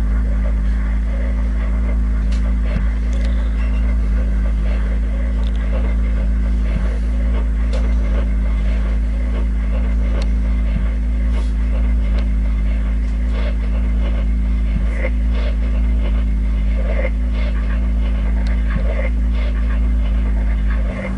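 Live electronic improvisation: a steady low drone with held tones above it, sprinkled with crackles and small glitchy clicks throughout.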